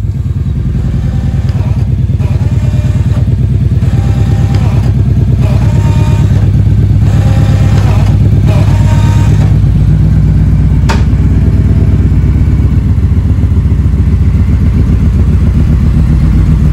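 Kawasaki Vulcan 1700 Voyager's V-twin engine running steadily with an even pulsing beat, with a single sharp click about eleven seconds in.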